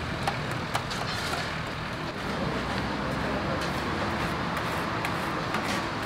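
Outdoor street-food stall ambience: a steady wash of traffic and crowd noise, with light metal clinks from wire grill baskets and a knife against them.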